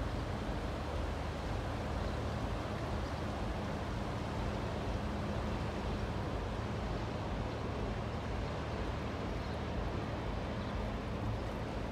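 Steady low drone of a small cargo ship's diesel engine passing on the river, a few even hum tones under a constant hiss.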